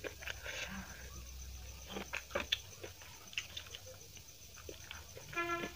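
Close-miked eating of chicken biryani by hand: wet mouth smacks and chewing clicks, scattered and irregular, with a brief pitched sound near the end.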